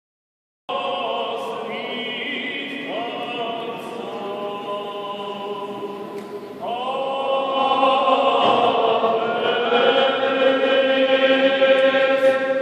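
Armenian liturgical chant sung by a choir: long held notes in slow phrases, starting just under a second in, with a new, louder phrase beginning about halfway through.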